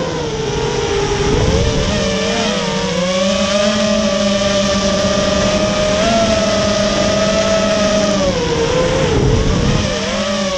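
Eachine X220 Wizard quadcopter's brushless motors and propellers whining in flight, heard from the onboard camera. The whine drops in pitch as throttle comes off at the start, holds steady, then sags and wavers about eight to nine seconds in before picking up again. Low wind rumble comes in briefly about a second and a half in and again near the end.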